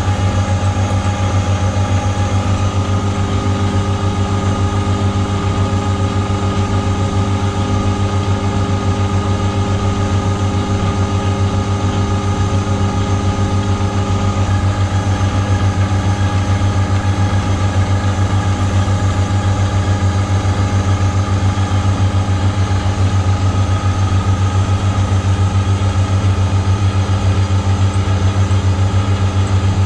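Colchester metal lathe running steadily, a low motor hum with a whine of gear tones over it; one of the whine tones changes about halfway through.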